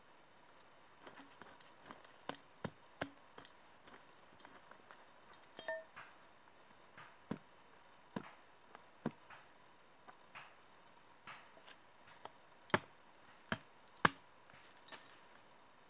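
A knife blade chopping and notching small wooden sticks: irregular sharp taps and knocks, with a few louder strikes near the end.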